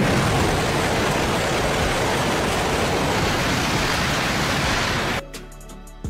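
Shinkansen bullet train passing through a station at high speed, a steady loud rush of wind and wheels on rail. It cuts off abruptly about five seconds in, and soft music follows.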